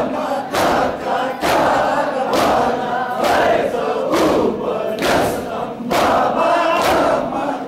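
A crowd of men chanting a Muharram mourning lament (noha) together, keeping time with a sharp collective chest-beat (matam) about once a second.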